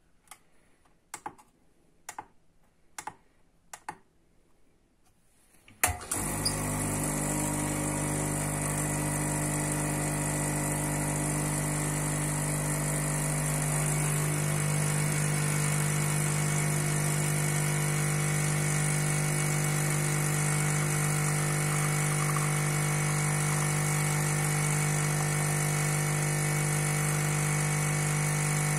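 A few light clicks, then the ECM Puristika espresso machine's vibratory pump switches on and hums loudly and steadily while it pushes water through the coffee puck during the shot; its low tone shifts slightly about eight seconds after it starts.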